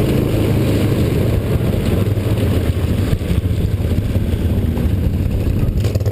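Quad bike (ATV) engine running steadily at low speed, heard loud and close from the machine the camera rides on.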